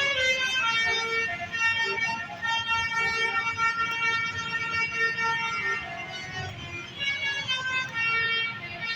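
Bus telolet musical air horn playing a tune: several horn tones sounding together, changing note every fraction of a second.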